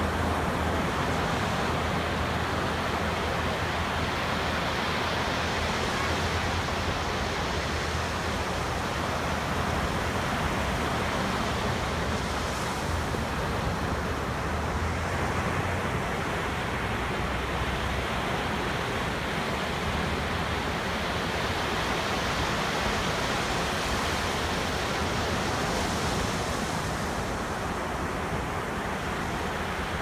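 Ocean surf breaking and washing up a sandy beach: a steady rush of waves.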